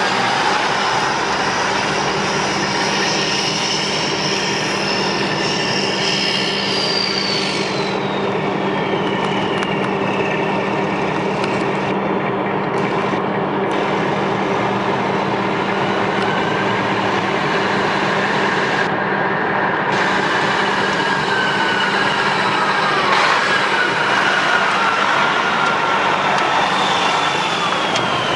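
Detroit Diesel 12.7 L straight-six diesel in a Freightliner FLD tractor idling steadily, with high whistling tones that slowly glide up and down over the engine note.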